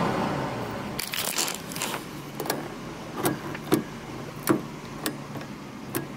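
The switch of a 1988 Buick Electra Estate wagon's overhead reading light being flicked again and again: a rattle about a second in, then a run of single sharp clicks about half a second to a second apart, over a faint steady hum. The switch is a little off, so the lamp does not come on reliably.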